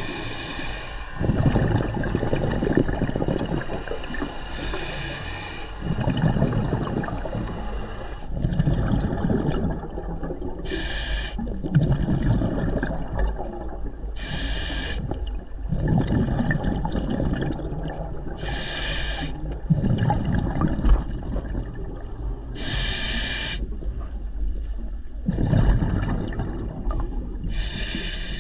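Scuba diver breathing through a regulator underwater. Every four seconds or so there is a short hissing inhale, followed by a longer low bubbling rush of exhaled air.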